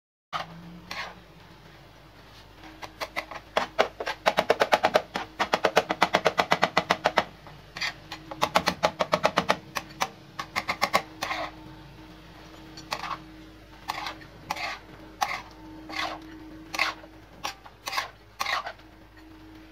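Metal spatula clanking against an iron tawa griddle as mutton is chopped and stirred on it. The clanks come in fast runs of about eight a second, then slow to single strikes.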